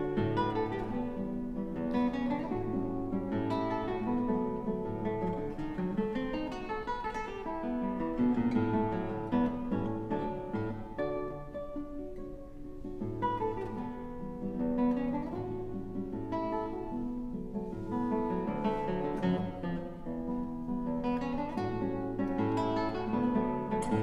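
Solo classical guitar, fingerpicked: a quick melody over repeated bass notes, played in a concert hall.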